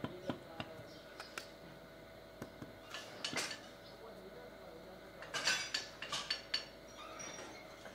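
Scattered light taps and knocks: a hand hammer tapping a sand-casting pattern to seat it level in the moulding sand, then the pattern and sand being handled. The taps come a few at a time, with a denser run of them about two thirds of the way through.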